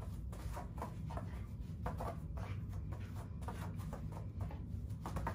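Soft shuffling and scattered light taps of a German Shepherd and its barefoot handler moving about on interlocking foam floor mats, over a steady low hum.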